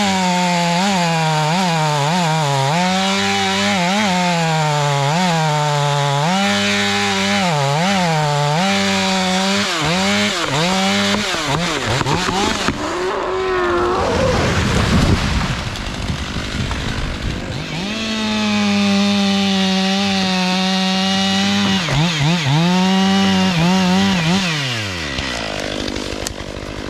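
Stihl MS 500i chainsaw running at full throttle while cutting into a dead oak. Its high engine note dips again and again as the chain loads up in the wood, then recovers. The note breaks up into a rougher, noisier stretch in the middle, returns high, and falls to a lower idle near the end.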